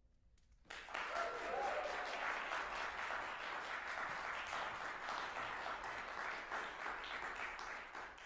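Audience applauding, beginning suddenly less than a second in after a brief silence and cut off abruptly at the end.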